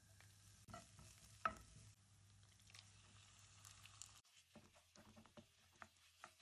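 Onion and diced raw chicken frying faintly in oil in a nonstick frying pan, with a wooden spatula stirring. A sharp knock about a second and a half in is the loudest sound, and the second half holds a run of light clicks and taps of the spatula against the pan.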